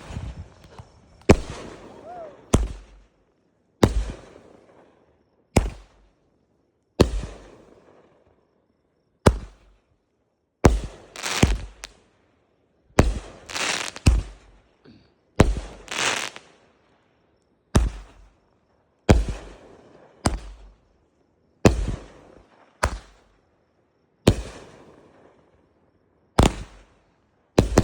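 A TNT Red Devil finale firework cake firing its shots in sequence: about twenty sharp bangs, roughly one every second or so, each trailing off over about a second.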